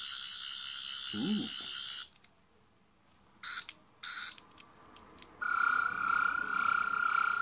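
Toy sonic screwdriver (the 12th Doctor's second sonic) playing its electronic sonic sound effect through its small speaker: a high warbling whir for about two seconds, two short bursts, then a steadier whine from about five seconds in.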